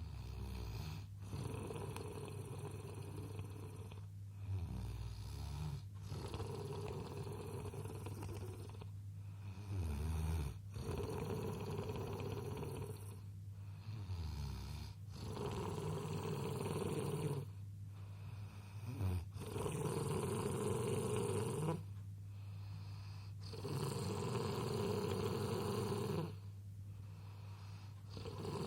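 A sleeping baby snoring steadily, one drawn-out snore about every four seconds with a brief pause between breaths.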